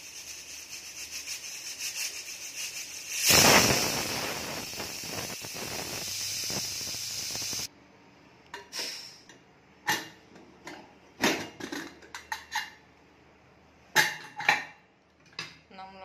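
Pressure cooker's whistle weight hissing and fluttering with steam, swelling into a full, loud whistle about three seconds in that blows for some four seconds and then cuts off abruptly. A few sharp clinks and knocks follow.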